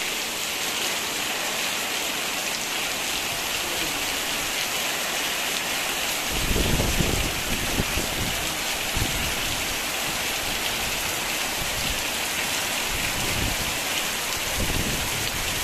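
Heavy rain pouring down and streaming off the roof edge in a steady loud hiss. From about six seconds in, low rumbles swell and fade, strongest soon after they begin.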